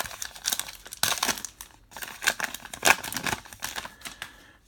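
A 2019 Topps Heritage baseball card pack's wrapper being torn open and crinkled by hand: irregular crackling and rustling, with the sharpest crinkles about a second in and again near three seconds.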